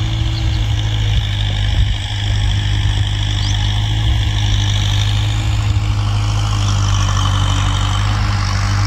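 Farm tractor engine running steadily under load as it pulls a ridging implement through dry soil: a continuous low drone with a steady hiss above it.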